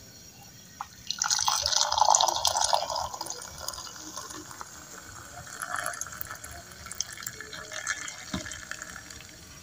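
Hot milky tea poured in a stream from a metal pan into a ceramic mug. The pouring starts about a second in, is loudest at first, then goes on more quietly as the mug fills.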